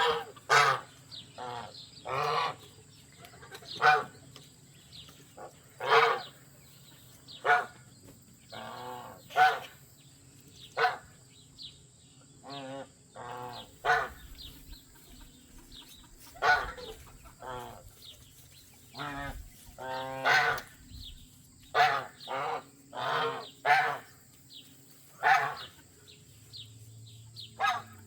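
Domestic geese honking: a long string of short, separate calls, one every second or two.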